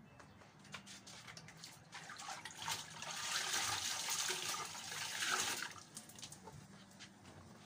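Water running and splashing out of a wet garment as it is wrung out by hand, starting about two seconds in and stopping just before six seconds.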